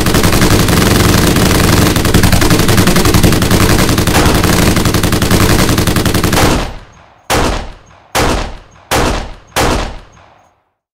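Dubbed-in gunfire sound effect: a long burst of rapid automatic machine-gun fire lasting about six and a half seconds, then four single shots a little under a second apart, each with an echoing tail.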